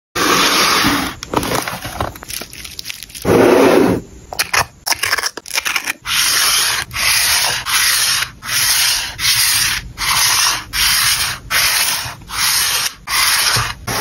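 A card rubbed back and forth over washi tape stuck on a paper sheet, burnishing it down. After a few seconds of irregular rubbing and scraping, it settles into an even run of about ten scraping strokes, a little over one a second.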